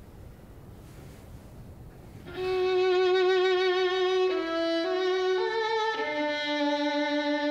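Violin playing a slow melody of held notes with vibrato, coming in about two seconds in after a faint steady hiss.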